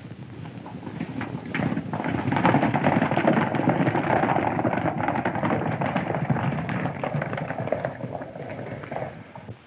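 Hoofbeats of several horses galloping together, a dense clatter that swells about two seconds in and thins out near the end.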